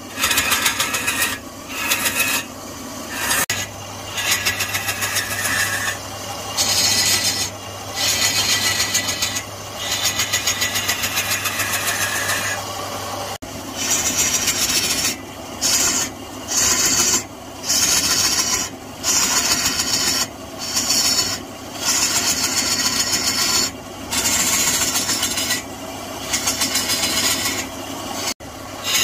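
Wood lathe turning a large wooden blank while a hand-held turning chisel cuts into the spinning wood. It makes a harsh scraping rasp in repeated passes, each about a second long with short breaks between.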